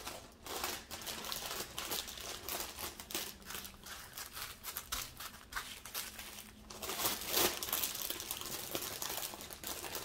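Small plastic zip-lock bags of diamond-painting drills crinkling and rustling as they are picked up and handled, an irregular crackle that gets busier and louder from about seven seconds in.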